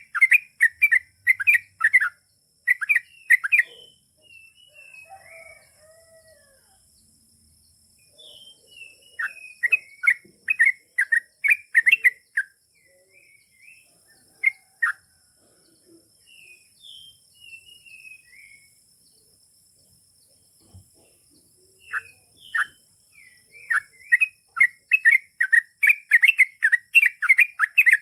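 Yellow-vented bulbul (trucukan) singing long, fast runs of sharp chirping notes. The runs come in three bursts, at the start, around ten seconds in and in the last six seconds, with scattered single calls in the quieter gaps between.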